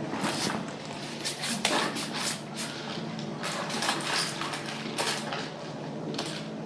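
Household tidying: things being handled, moved and set down, with irregular rustles and light knocks over a low steady hum.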